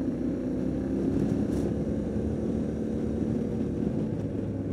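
Yamaha Ténéré 700's 689 cc parallel-twin engine running steadily under way.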